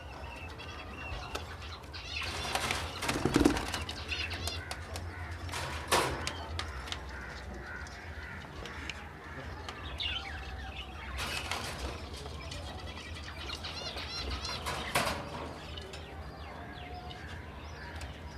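Caged aviary birds chirping, with several short flurries of wing-flapping as they flutter about in their cages.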